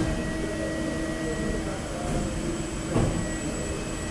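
Okuma Multus U3000 mill-turn CNC machine running as its program restarts, a steady whine of motors with a high whine coming in partway through and a louder surge about three seconds in.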